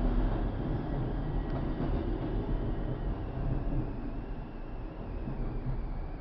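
Steady low rumbling background noise, easing off slightly toward the end.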